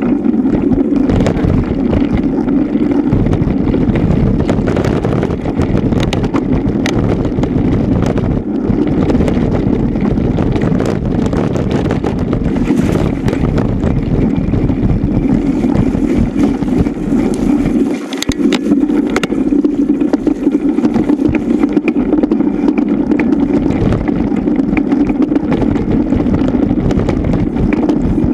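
Mountain bike ridden fast over a rough, muddy dirt trail, heard from a camera mounted on the bike: a steady rush of wind on the microphone and tyre rumble, with frequent knocks and rattles as the bike hits bumps.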